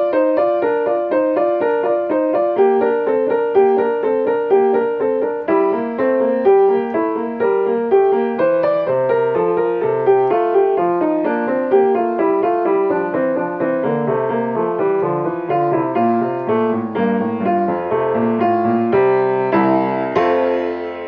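Baby grand piano played solo: a steady stream of notes in a classical piece, ending with a fuller final chord near the end that rings out and fades.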